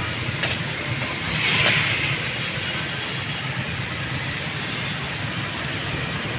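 A vehicle driving along a wet road: a steady engine hum under the noise of tyres and wind, with a louder rushing swish about a second and a half in.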